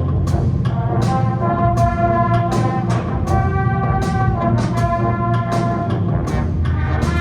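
Showband wind ensemble playing: brass sounding held, shifting chords over a low sustained bass, punctuated by regular percussion strikes.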